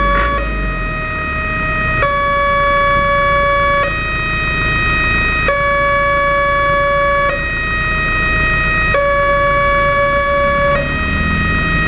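Railway level-crossing warning siren, an unusual type, sounding continuously. It alternates between two close pitches, switching about every one and a half to two seconds, warning that a train is approaching and the crossing is closed.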